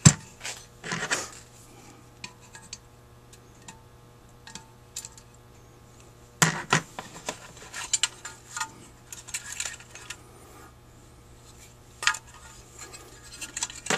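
Scattered metallic clinks and knocks of a screwdriver and small parts being handled against a Rochester 4GC carburetor's float bowl casting. The loudest knocks come just after the start, about halfway through and again near the end.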